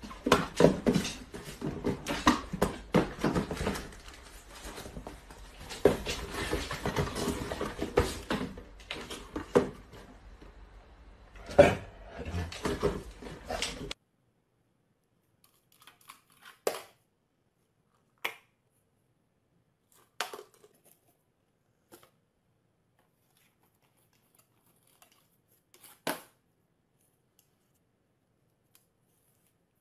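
Cardboard boxes being handled and folded by hand: dense rustling, scraping and knocking, with a sharp knock near the middle. About halfway through it stops, and near silence follows, broken by a few single faint taps and clicks.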